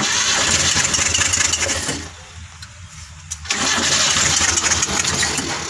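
Carburetted car engine running with a misfire, a limp that is traced to a weak spark plug. Under a steady low hum come two louder, hissy stretches of about two seconds each, with a quieter gap between them.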